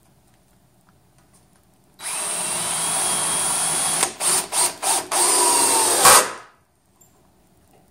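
DeWalt 20V cordless drill driving a 3-inch screw into a pine 4x4 without a pilot hole. The motor starts about two seconds in and runs steadily with a slight rising whine. It is then pulsed on and off three times in quick succession, runs once more and stops about a second before the end.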